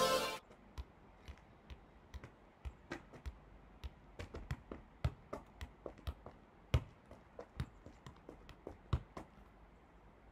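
A soccer ball being juggled on the knees and feet: a quick series of short, soft thumps, about three a second, that stop near the end when the ball is caught. Electronic intro music cuts off just at the start.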